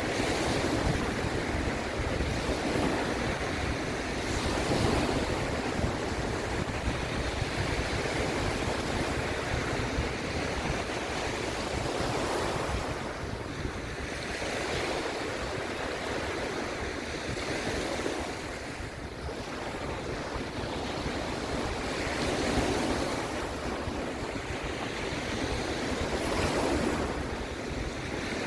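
Sea waves breaking and washing, the surf swelling and falling back every few seconds, with wind rumbling on the microphone underneath.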